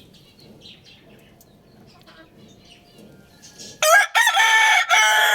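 A rooster crowing loudly: one long crow that starts near the end, after a few seconds of faint chirping from small birds.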